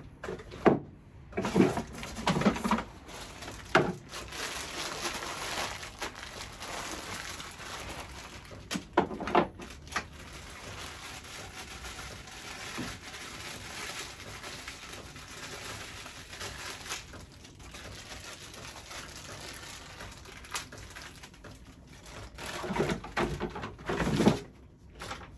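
Plastic packaging rustling and crinkling while parts are handled, with light clicks and knocks of plastic pieces and screws, including two sharper knocks close together about nine seconds in.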